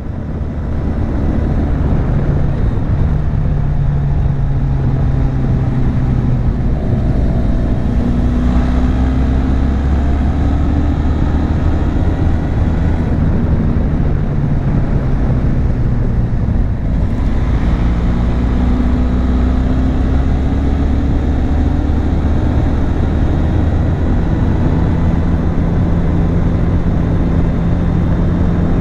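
Benelli TRK 502 parallel-twin engine and exhaust pulling under way, from a bike-mounted mic. Its pitch rises and then drops twice, about eight and seventeen seconds in, as it changes gear.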